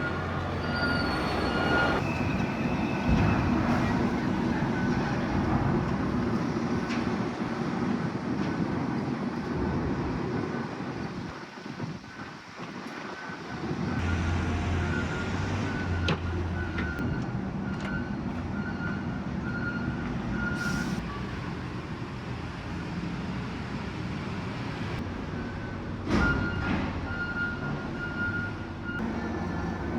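Steady engine and machinery rumble around a ferry, with an intermittent high beeping like a vehicle's reversing alarm coming and going, and a few short knocks.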